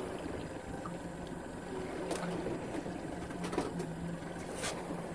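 Boat's outboard motor running steadily with a low hum, water sloshing around the stern, and a few sharp clicks.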